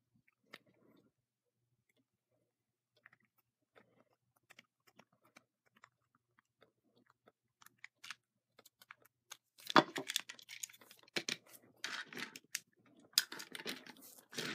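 Plastic clicking and rattling as a battery-powered Trackmaster toy engine is handled with a small screwdriver: a few faint ticks at first, then from about ten seconds in a dense run of louder clicks and knocks as the engine and its tender are set down on a wooden table.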